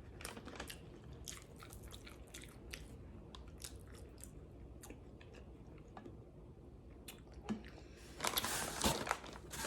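Close-miked eating sounds: soft chewing with small wet clicks and smacks of the mouth. About eight seconds in there is a louder, rougher crunch lasting about a second.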